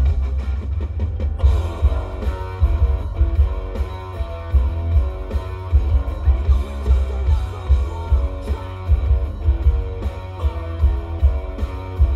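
Rock-style music with guitar and drums played through a Kicker Solo-Baric L7 12-inch square subwoofer in a ported box tuned to 34 Hz. The loudest part is heavy bass below about 100 Hz, pulsing with the beat.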